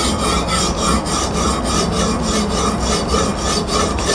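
An 80-grit CBN sharpening stone on a Hapstone RS guided sharpener rasps along a steel knife edge in quick, even back-and-forth strokes, about four a second.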